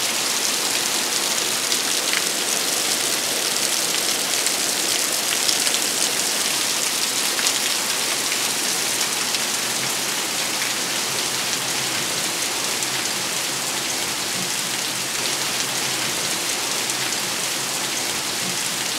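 Steady heavy rain falling, an even hiss of rain on surfaces.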